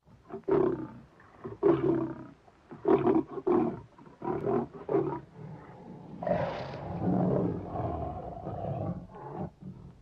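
Roaring like a big cat: a run of short roars, then one longer roar starting about six seconds in.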